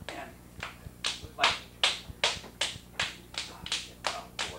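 Hands slapping a large lump of wet clay on a potter's wheel head, a steady run of sharp wet slaps about three a second, some louder than others.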